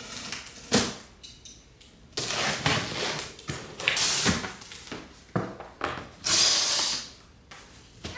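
Household handling noise: a sharp knock, then several short stretches of scraping and rustling with light knocks in between.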